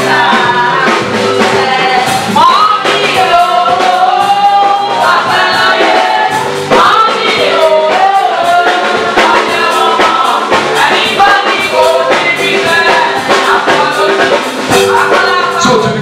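A gospel song sung by a lead voice with instrumental accompaniment.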